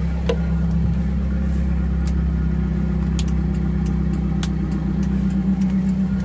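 1991 Suzuki Katana's engine idling steadily, sounding smooth and healthy, with a few light clicks as the dashboard light switches are flipped.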